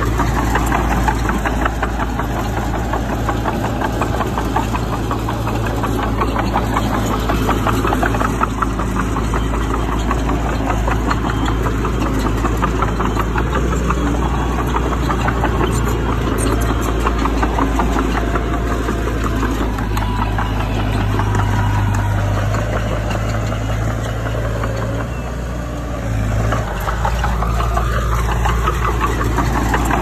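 Heavy diesel engine of earthmoving machinery running steadily with a rapid clatter, easing off briefly about 25 seconds in.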